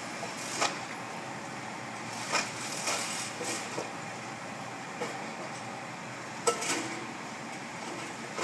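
Demolition clearing-out: irregular metallic clanks and scraping knocks as debris is worked out of a building opening and into a skip, over a steady background hum.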